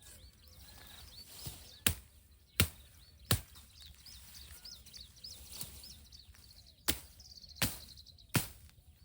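Wood being chopped with a blade: six sharp strikes in two sets of three, about three-quarters of a second apart, cutting a small tree for shelter roofing. Birds chirp faintly behind.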